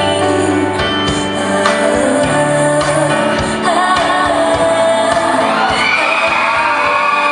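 A pop song performed live: a voice singing over instrumental accompaniment.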